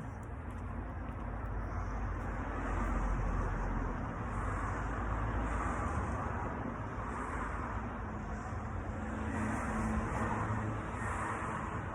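Steady outdoor background rumble and hiss that swells and fades every few seconds.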